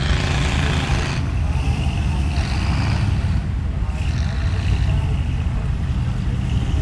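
Lifted 4x4 mud truck's engine running steadily with a deep low rumble as the truck churns through deep mud.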